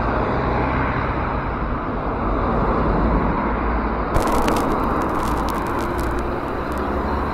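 Steady street traffic noise with a car close by. About four seconds in, a scatter of light clicks and ticks joins it.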